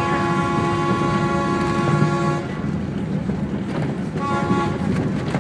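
Mount Washington Cog Railway locomotive's whistle: one long blast of about two and a half seconds, then a short one near the end, over the steady low rumble of the train running on the rack track.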